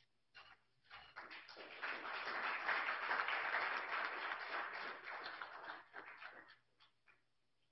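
Audience applauding: a few single claps, then a full round of clapping that builds within about two seconds, holds, and thins out to a last few scattered claps near the end.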